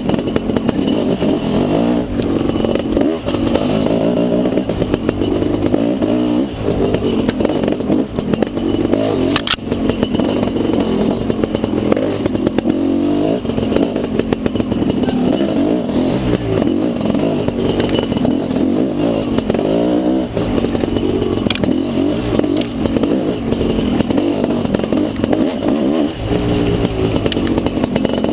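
Dirt bike engine ridden hard on a trail, its revs rising and falling continuously as the throttle is worked, with rattle from the bike. Two sharp knocks, about a third of the way in and about three quarters in.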